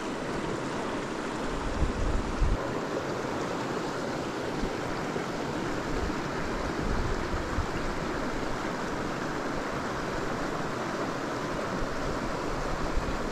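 River water rushing steadily, an even wash of flowing water, with a few brief low thumps about two seconds in.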